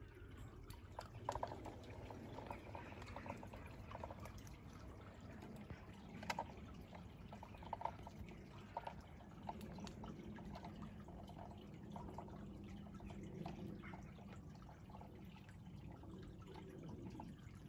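Faint sound of a garden-railway train rolling slowly: the wheels click irregularly over rail joints and points, over a low steady hum.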